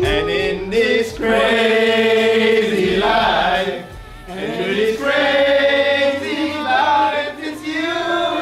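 Soundtrack music: choir-like vocals sung in long held notes with no words picked out, easing off briefly about four seconds in before rising again.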